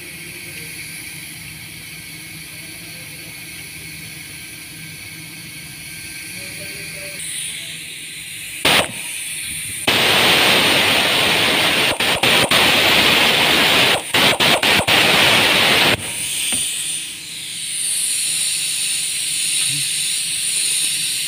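Impact wrench tightening the bolt of a new engine idler pulley, running loud for about six seconds in several bursts with short breaks. A sharp click comes just before it starts.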